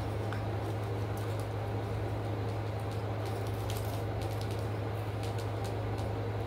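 A steady low hum, with scattered light crinkles and crunches from a plastic snack bag being handled and snacks being chewed.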